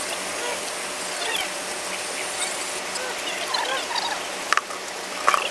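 Cow being hand-milked into a steel bucket: a steady hiss of milk streams squirting into the pail. Short faint chirping calls sound over it, and there are a couple of sharp clicks near the end.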